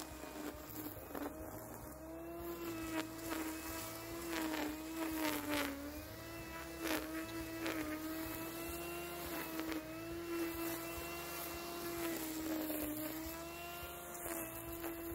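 Hecht 630 corded electric string trimmer (600 W) running as its nylon line cuts grass along a lawn edge. It makes a steady high hum whose pitch dips slightly and recovers under load, with occasional short ticks.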